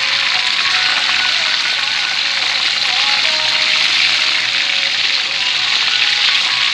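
Chicken wings deep-frying in hot oil: a steady, loud sizzle, with faint music underneath.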